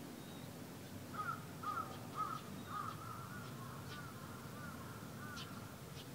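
Crow cawing in a series of calls about twice a second, fading out after about five seconds, over a low steady background rumble.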